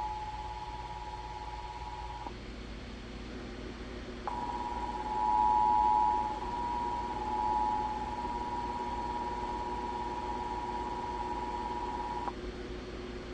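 Emergency Alert System attention signal: two steady tones sounding together just under 1 kHz, over a hissy background. It breaks off about two seconds in, returns about two seconds later, runs for about eight seconds and then stops. This is the tone that announces an emergency alert message is about to be read.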